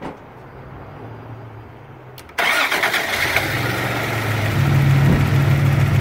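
Toyota pickup's 3.0 V6 engine cranking for about two seconds, then catching and starting with a sudden jump in loudness, then running and rising in speed a couple of seconds later. This is the no-start fault cured by reseating the loose ignition coil and igniter connectors.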